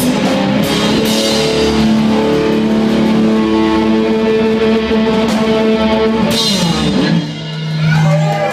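Live rock band playing loudly: distorted electric guitars, bass and a drum kit. Near the end the playing thins out to a single held low note.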